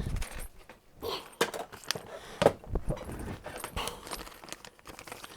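Small plastic parts bag being cut open with scissors and handled: crinkling with irregular small clicks and taps.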